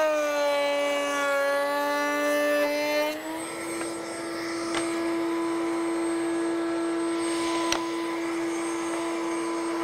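Table-mounted router spinning a groove-cutting bit: its whine sags in pitch while a board is fed through the cut for the first three seconds, then rises back to a steady free-running whine once the stock clears the bit. Two sharp ticks near the middle and end.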